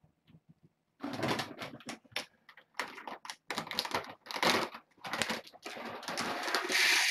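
Dry cat food and its bag being handled: irregular rattling and rustling of kibble, with a longer continuous rush of pouring near the end.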